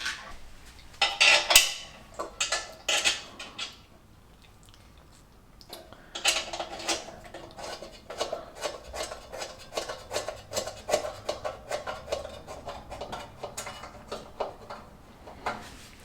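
Small metal parts clinking and rattling as a bolt and washers are handled against sheet-metal engine tinware. A cluster of louder clinks comes about a second in, then a quiet moment, then a long run of lighter irregular clicks.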